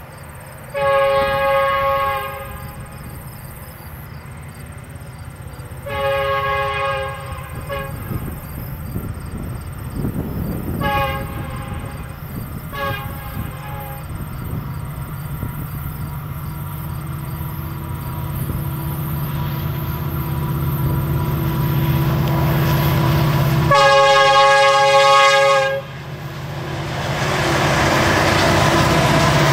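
Multi-chime air horn of a BNSF EMD SD75 diesel locomotive blowing a series of blasts: two long, two short, and a long one about 24 seconds in. Under the horn, the diesel engines of a three-unit EMD lashup hauling a loaded rock train work up a grade, their rumble growing steadily louder as they approach. Near the end it swells into a loud close pass.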